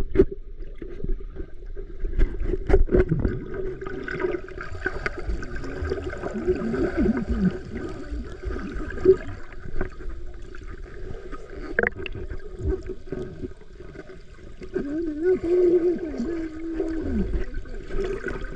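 Underwater sound picked up by a submerged action camera in a swimming pool: muffled gurgling and bubbling over a steady low hum, with a few sharp clicks. Muffled wavering hums rise and fall a few seconds in and again near the end.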